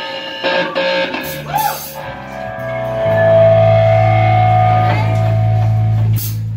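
Live rock band's electric guitar and bass guitar playing long, ringing chords, with a few sharp drum or cymbal hits, all cutting off together about six seconds in.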